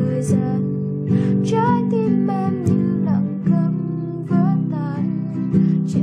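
Classical nylon-string guitar played fingerstyle: a plucked melody over ringing bass notes.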